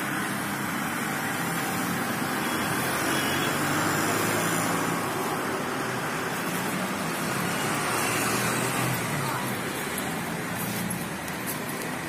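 Steady road traffic noise, an even rumble and hiss of passing vehicles.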